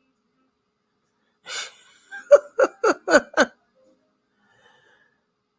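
A woman laughing briefly: an intake of breath about a second and a half in, then five quick 'ha' pulses, each falling in pitch.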